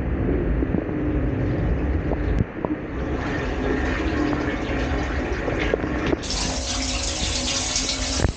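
Water spraying and splashing inside a running dishwasher, over a low steady rumble. About six seconds in the spray suddenly turns hissier.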